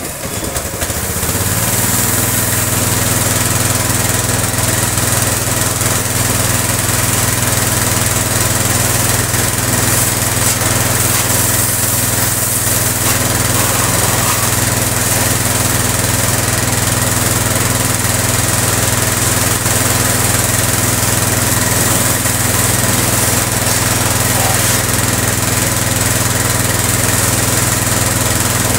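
Electric jet cleaner (pressure washer) starting up over the first couple of seconds and then running with a steady hum, its water jet hissing as it rinses soap off a motor scooter.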